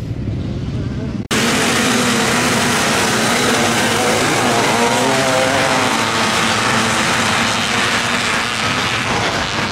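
A large field of off-road motorcycles launching together from a race start, many engines revving hard with pitches rising and falling over one another. It cuts in suddenly about a second in, after a quieter stretch, and eases off a little near the end as the pack pulls away.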